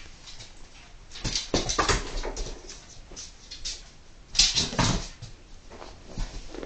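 Poodle making quick, rough dog sounds close by, in two clusters, one about a second in and a louder one about four and a half seconds in.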